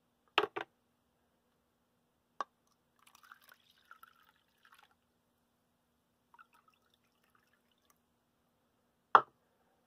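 Iced tea poured from a glass jar into a plastic measuring cup, a faint trickle about three to five seconds in. Sharp knocks of the jar and cup on the counter come about half a second in and again near the end.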